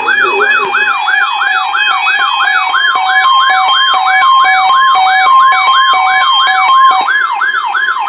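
Weather alert radios sounding their alert for an EAS Required Weekly Test: a fast siren-like warble sweeping up and down about four times a second. Short steady beeps join in from about three seconds in.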